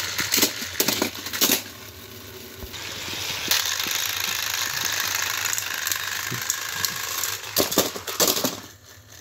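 Battery-powered toy train engines' small motors whirring and gears clattering as two engines push against each other on plastic track, with sharp plastic clacks. There is a quieter stretch about two seconds in, then the whirring picks up again. A burst of clattering comes near the end as one engine tips off the track, and then the whirring stops.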